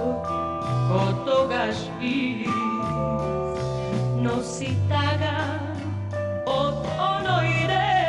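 A woman singing a Macedonian pop song with band accompaniment: a wavering lead vocal line over sustained instrumental notes and a bass line that moves from note to note.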